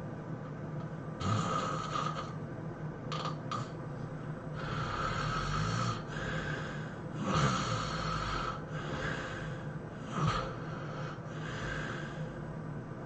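A person snoring heavily in their sleep: an irregular run of snores, some drawn out over a second or so and a few short, sharp ones, about three and ten seconds in.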